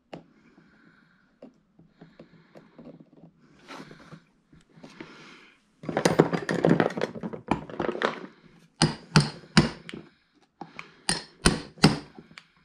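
Metal tools clattering, then two quick groups of about four sharp metallic taps: a hammer tapping a staple partway in on a pull-start recoil starter.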